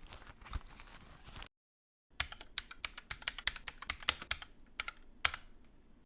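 Typing on a Keychron K6 mechanical keyboard with Gateron Brown switches: a quick run of clacking keystrokes, with a few louder ones near the end. It starts about two seconds in, after a second or so of rustling noise.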